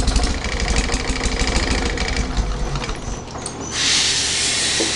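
Rebuilt Detroit Diesel 2-71 two-cylinder two-stroke diesel engine running with a fast, dense mechanical clatter over a low rumble. A steady hiss takes over about three and a half seconds in.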